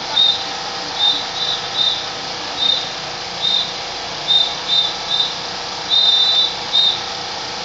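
Drill leader's whistle sounding about eleven short, sharp blasts in an uneven rhythm, with one longer blast about six seconds in, the signals that time the moves of a fancy drill.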